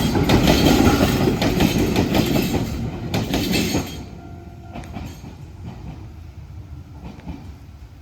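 Enshu Railway electric train passing over the level crossing, its wheels clattering over the rail joints. Loud for about the first four seconds, then it fades quickly as the train moves away.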